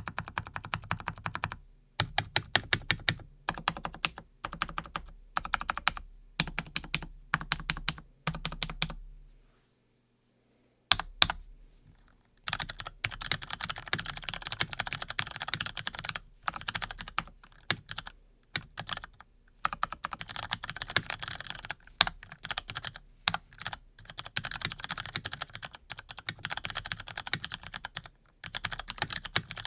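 Typing on a Razer BlackWidow V3 Pro mechanical keyboard with lubed Cherry MX Brown tactile switches, keys clacking in quick runs. Short bursts pause briefly about nine seconds in, then give way to fast, near-continuous typing.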